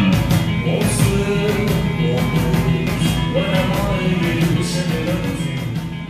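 Live two-piece rock band playing: guitar strumming over a drum kit that has no bass drum, with steady cymbal and drum hits and a sung melody line over the top.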